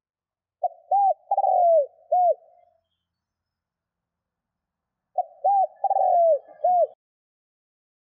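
Spotted dove cooing: two phrases of about four hooting notes each, a few seconds apart, the third note of each drawn out and falling in pitch.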